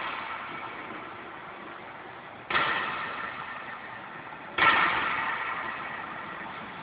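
CNC sheet-metal V-groove machine running, with two sudden noisy surges, about two and a half and four and a half seconds in, each fading away over a couple of seconds.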